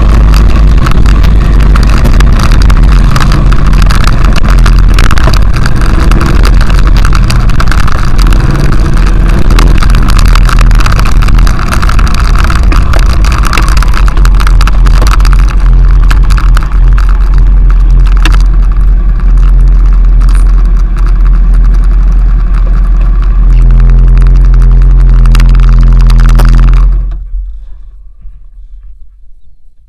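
Honda XRV750 Africa Twin's V-twin engine running under way, mixed with heavy wind buffeting on the bike-mounted microphone. Near the end the engine settles to a steady note, then cuts off about three seconds before the end as the bike is switched off.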